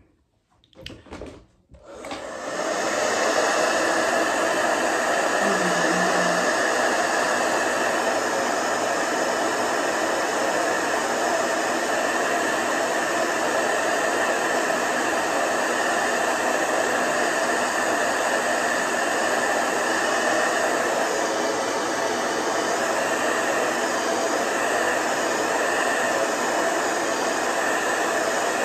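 Handheld hair dryer switched on about two seconds in after a few light knocks, then running steadily at a constant speed.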